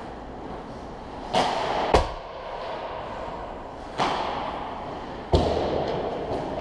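Ice-hockey shots on the rink: two sharp puck-and-stick impacts, about two seconds and five and a half seconds in, each with a rasping scrape on the ice around it.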